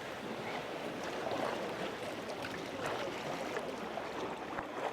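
Seawater splashing and lapping around a sea kayak, with small scattered splashes and drips.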